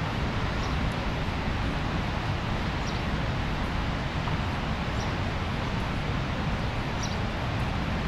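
Rhine Falls waterfall: a steady, unbroken rush of falling water, heaviest in the low end, with faint high chirps about every two seconds.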